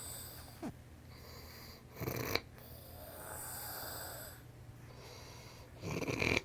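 A sleeper snoring: two short, harsh, rasping snores about four seconds apart, the second near the end, with a softer, drawn-out wheezy breath carrying a faint wavering whistle between them.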